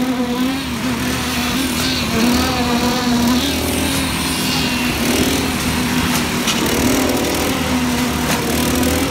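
Small petrol-engine concrete vibrator running steadily as its poker works freshly poured slab concrete, a hum whose pitch wavers slightly.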